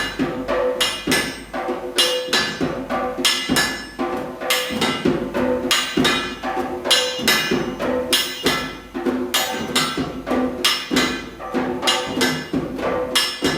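Hammer blows on an anvil at about two a second, each ringing, with music underneath.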